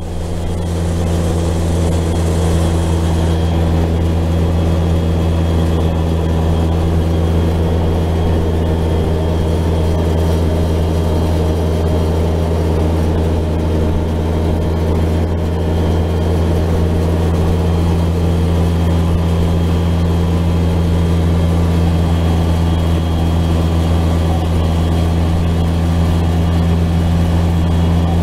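Side-by-side UTV engine running at a steady cruise, heard from inside the open cab: a low drone at an unchanging pitch.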